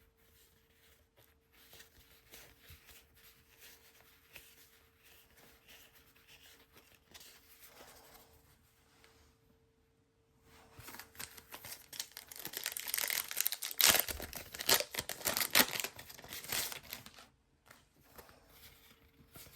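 Faint handling of trading cards, then from about ten seconds in a football-card pack wrapper being torn open and crinkled loudly for several seconds.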